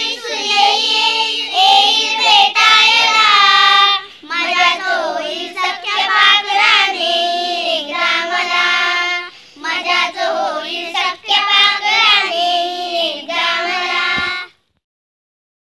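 Children singing a Marathi school poem together in phrases with short breaks; the singing cuts off suddenly near the end.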